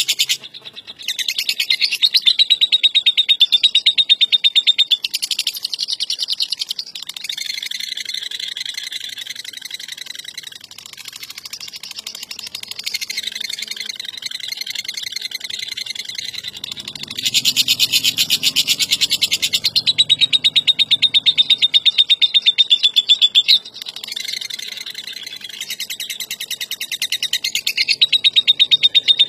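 Lovebird in long 'ngekek' bouts: rapid, high-pitched chattering trills. The loudest runs last several seconds, one right at the start and another about two-thirds of the way through, with softer chatter between them.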